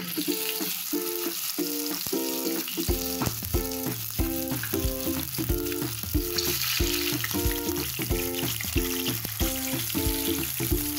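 Hilsa fish steaks sizzling as they fry in hot mustard oil, the sizzle growing stronger about six seconds in as more pieces go into the pan. Background music with a steady repeating pattern plays throughout, and a bass line comes in about three seconds in.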